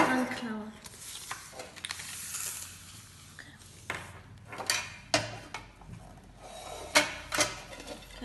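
Tabletop handling noise: a paper rustle in the first few seconds as small rolled paper lots are handled and unrolled, then, from about four seconds in, a series of sharp clicks and taps as a metal tin is picked up, handled and set down.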